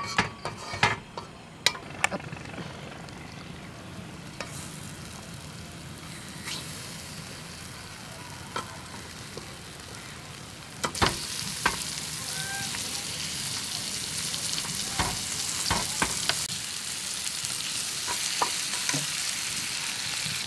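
A few clinks of utensils on dishes near the start, then food sizzling on a hot black grill pan. The sizzle grows louder from about eleven seconds in as pieces of vegetable are laid on, with a few knocks.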